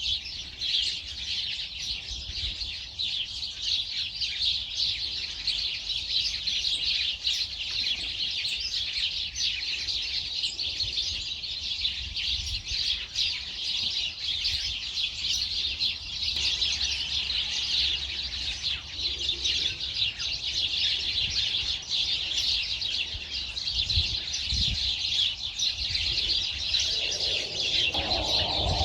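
A chorus of many small birds chirping and twittering without a break, over a low rumble.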